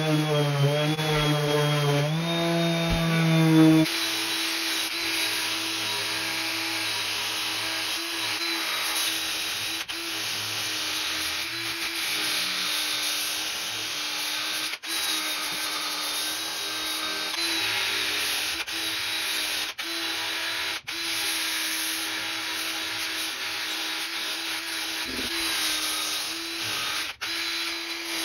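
A 5-inch random orbital sander runs briefly on walnut. From about four seconds in, a cordless drill spins a sanding drum against the edge of a walnut board, a steady motor hum with a high whine and grinding, broken by a few short sudden dropouts.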